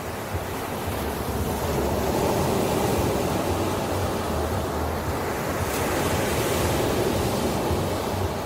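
Ocean waves washing onto a shore: the surf swells over the first couple of seconds, holds, then eases off near the end.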